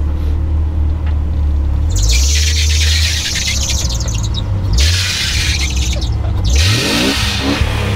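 Jeep Cherokee XJ engine running low as it crawls over rock, with two long high-pitched squealing scrapes, the first about two seconds in and the second just after the halfway point. The engine revs up briefly twice near the end.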